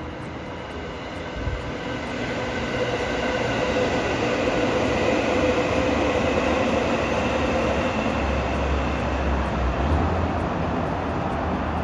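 Electric train passing, its rumble growing to a peak midway and easing off near the end, with a steady whine from its motors over the noise of the wheels on the rails.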